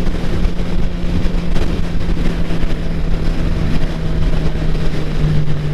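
Motorcycle engine running at a steady speed under a heavy rush of wind noise. About five seconds in, the engine note drops a step as the throttle is released.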